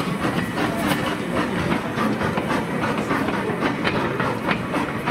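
The 1979 replica of Stephenson's Rocket steam locomotive and its open passenger carriage running past on the track, the wheels clicking repeatedly over the rail joints.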